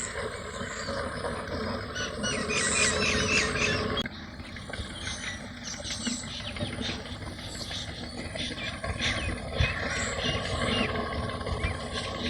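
Many small birds chirping in quick, repeated calls over a steady low background noise. The sound changes abruptly about four seconds in.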